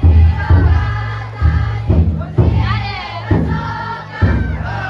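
Futon daiko festival float's big taiko drum beating heavily, roughly every half second to a second, under a crowd of bearers chanting the float song together.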